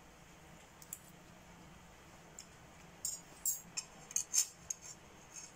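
A man chewing a mouthful of bean and meat stew, with small wet mouth clicks and lip smacks: a few scattered ones, then a quick irregular run of them from about three seconds in.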